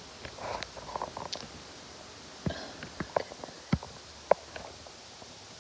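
Small plastic clicks and soft handling noises of laptop parts being worked by hand while a screen cable is fed around them, with two sharper clicks near the middle.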